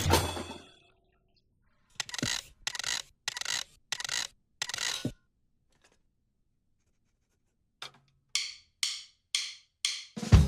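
Two runs of short percussive hits, each one fading quickly. The first run has five evenly spaced strikes starting about two seconds in; the second has about five quicker, higher ones near the end.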